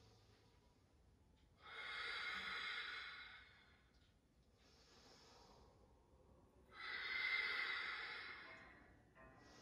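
A person's slow, audible ujjayi breathing: long hissing breaths through the throat, two louder ones of about a second and a half each, about two and seven seconds in, with softer breaths between.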